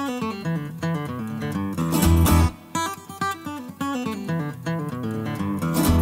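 Instrumental background music led by a plucked guitar playing quick runs of notes, with low bass notes about two seconds in.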